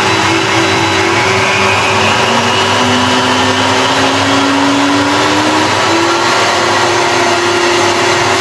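A table-mounted router and its dust extraction running steadily with a constant whine, the router set to a low speed. A second motor tone rises slowly in pitch from about two to six seconds in.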